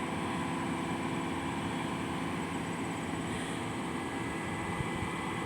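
A large engine running steadily at a constant speed, giving an even low drone with a faint high whine above it.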